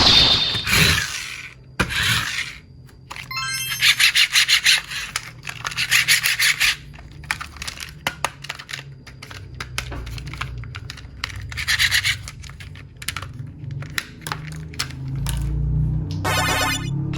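Rubbing and scraping handling noises, with a run of quick rhythmic scrapes, about three or four a second, some four seconds in.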